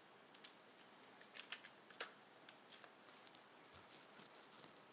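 Faint computer keyboard typing: irregular, light key clicks with short pauses.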